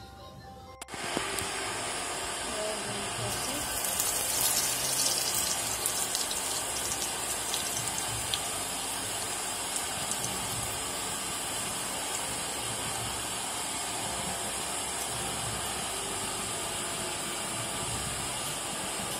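Hot oil sizzling steadily in a kadai with a tempering of seeds, dried red chillies and curry leaves, starting about a second in; the sizzle swells into louder spitting and crackling around four to six seconds in, then settles.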